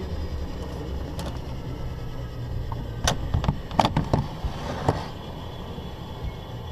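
Steady low drone of a BAe Jetstream 32's turboprop engines heard from inside the cockpit, with a cluster of sharp clicks and knocks about three to five seconds in as the cockpit side window is unlatched and swung open.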